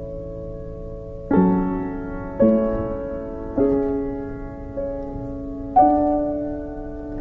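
Slow piano music: a held chord, then five new chords struck about a second apart, each ringing out and fading.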